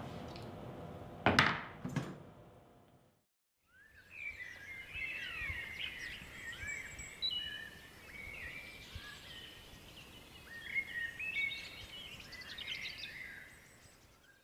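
Two sharp knocks about a second apart early on, then a short silence. After that, birdsong from several small birds, with many quick overlapping chirps and rising and falling whistled notes, fading out near the end.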